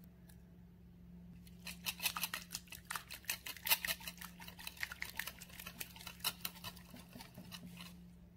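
Wire whisk beating chocolate cake batter in a glass bowl: rapid, rhythmic clicking and swishing as the wires strike the bowl, several strokes a second. It starts about a second and a half in and stops just before the end.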